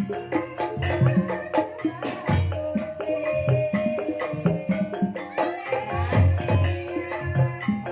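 Banyumasan gamelan music in ebeg style, with ringing pitched tones over a steady rhythm of drum strokes, played loud through a sound system.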